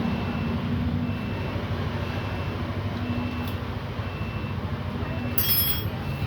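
Steady low mechanical rumble, like a running engine or machinery, with a faint high beep repeating about once a second. A brief metallic clink comes near the end.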